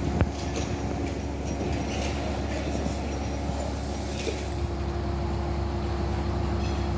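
Roller coaster lift-hill chain running, a steady mechanical hum with several held tones over a low rumble, and one sharp click just after the start.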